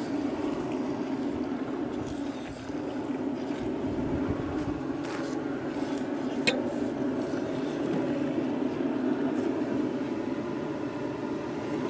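Sichuan hotpot base of chili paste, peppercorns and spices frying in oil in a wok, with a steady bubbling sizzle. Now and then the spatula clicks against the pan, sharpest about halfway through.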